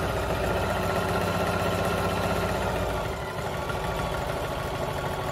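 Electric sewing machine running at speed, stitching the coils of a fabric-rope jelly-roll rug together. The motor hum and rapid needle strokes ease slightly about halfway through.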